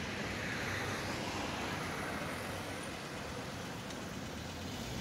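Cars driving past on the road, a steady wash of tyre and engine noise.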